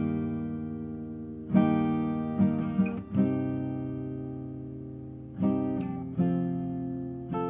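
Background music: a strummed acoustic guitar playing slow chords that ring out between strums.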